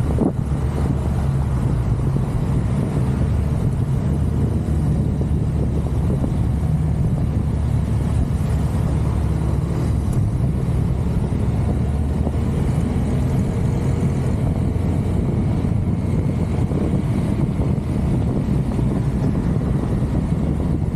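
Steady engine drone of a motorbike under way, mixed with wind rushing over the microphone, with no distinct events.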